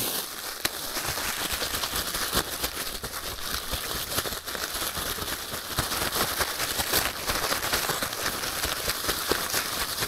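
Plastic bag crinkling and rustling as fish are shaken and mixed in it with flour for frying, a steady run of crackly rustling with small clicks.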